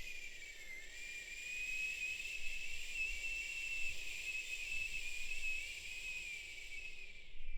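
One long, high whistled note with breathy hiss, wavering slightly in pitch. It dips a little about a second in, then holds and fades away near the end.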